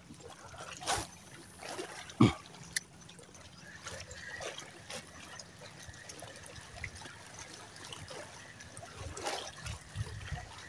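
Footsteps wading through shallow seawater: faint sloshing and trickling of water around the legs, with a sharp knock about two seconds in.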